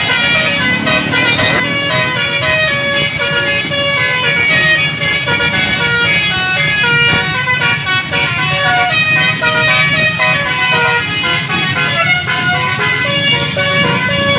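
Telolet basuri musical air horn on a bus playing a fast melody of short, stepped tones, with a steady low rumble underneath.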